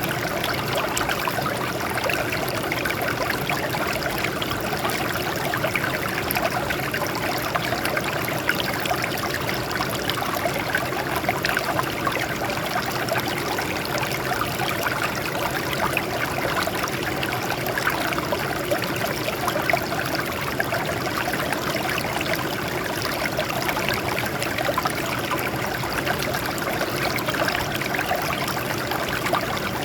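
Water flowing and trickling over rocks in a small stream, a steady babbling rush with fine splashes.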